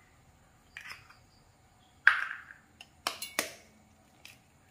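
A spoon tapping eggshells to crack them open over a stainless steel mixer jar: a handful of sharp taps and cracks. The loudest, about two seconds in, is a clink that rings briefly, and a quick run of cracks follows about a second later.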